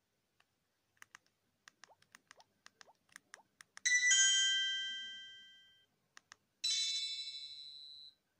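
Nomi i177 mobile phone's alert tones previewed through its small speaker, with a run of quick keypad clicks between them. A bright chime of several notes sounds about four seconds in and dies away over about two seconds. After two more clicks, a second chime with a rapid flutter plays for about a second and a half.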